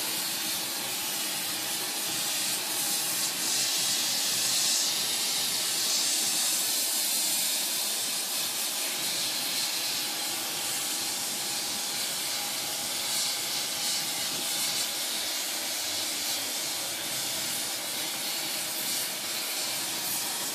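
Oxyacetylene torch with a rosebud heating tip burning with a steady hiss, playing its flame along the edge of a Damascus steel blade to heat it for differential hardening.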